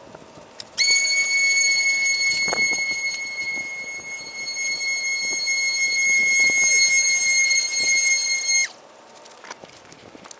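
Handheld leaf blower running with a steady high-pitched whine. It switches on about a second in, dips and swells as the blower passes close by, and cuts off suddenly near the end.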